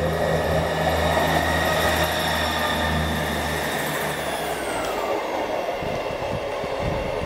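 Class 158 diesel multiple unit passing close by on its underfloor diesel engines, a steady low hum. About four seconds in, a whine drops in pitch as the train goes past, and the engine hum fades as it moves away.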